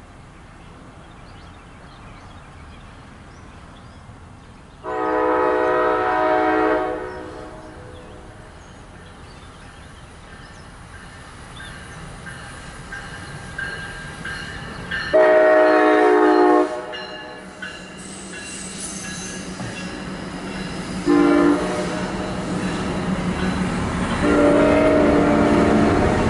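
MARC commuter train's horn sounding the grade-crossing signal: two long blasts, a short one, then a long one. The train's rumble grows louder as it approaches in the second half.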